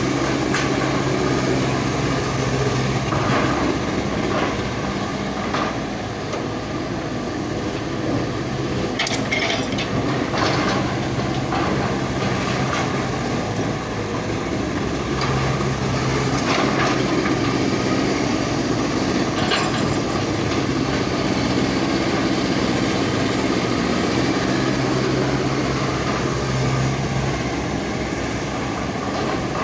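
Hydraulic excavator's diesel engine running steadily, working harder at times, with several sharp cracks and scrapes around the middle as the ripper tooth breaks up the ground.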